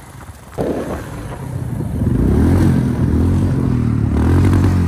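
Motorcycle engine coming in suddenly about half a second in, growing louder, and running steadily and loudly from about two seconds in.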